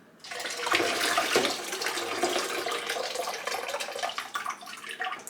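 Water being poured out of a humidifier's base, a steady splashing pour that starts just after the beginning and trails off near the end.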